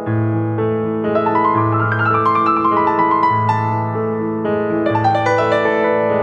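Piano music: held low bass notes changing about every second and a half under chords, with quick rising runs of notes about a second in and again around five seconds in.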